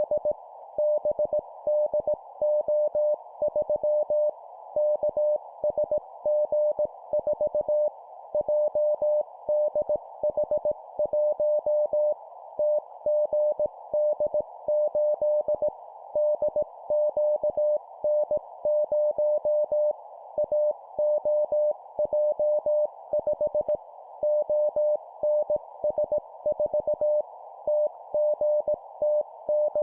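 Morse code (CW) at 17 words per minute: a single mid-pitched tone keyed on and off in dots and dashes, sending four-character groups of three letters and a number. A steady band of hiss sits around the tone, like noise through a receiver's narrow CW filter.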